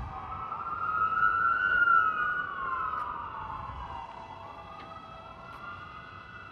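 Emergency vehicle siren wailing in slow rising and falling sweeps. It is loudest about two seconds in, then eases off.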